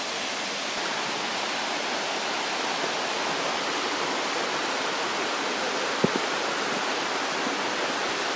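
Waterfall pouring: a steady, even rush of falling water, with one brief faint click about six seconds in.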